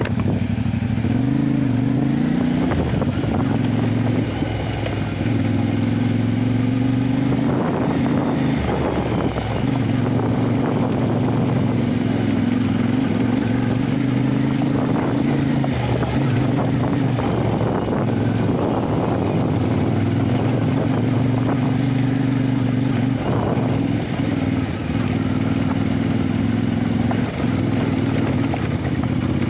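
Adventure motorcycle engine running steadily under way, its pitch rising briefly between one and three seconds in and dipping a few times later as the throttle changes, with wind and road noise underneath.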